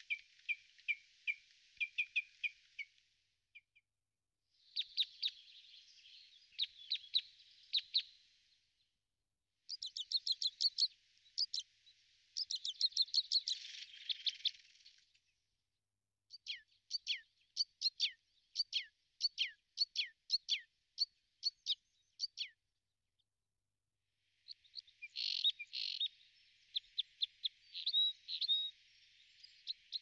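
Songbirds singing: bursts of rapid, high chirping trills, each a few seconds long, separated by short pauses.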